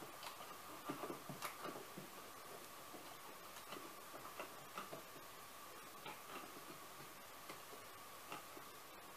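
Faint, irregular light clicks and rustles from a latex figure being handled and turned in the hands, over a steady faint high hum.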